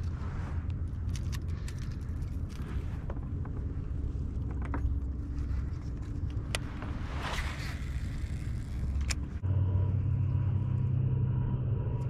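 Fishing kayak under way: paddle and gear knocking on the plastic hull over a steady low rumble, with a brief hiss in the middle. About three-quarters of the way through a steadier low drone with a faint pitch takes over.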